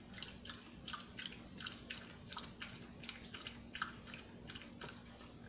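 Small dog lapping water from a bowl, a quick wet lap about three to four times a second.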